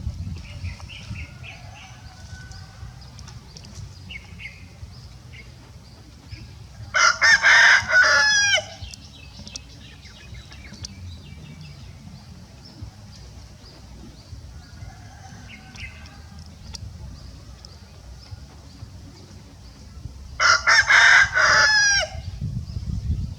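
A rooster crows twice, each crow about a second and a half long: once about seven seconds in and again near the end. A low steady rumble runs underneath.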